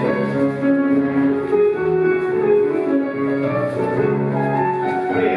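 Scottish country dance music in reel time, played for the dancers.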